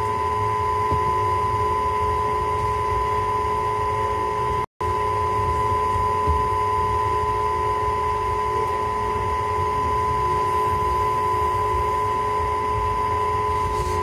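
Train running slowly, heard from on board: a low, steady rumble with a steady high-pitched hum over it. The sound cuts out for an instant about five seconds in.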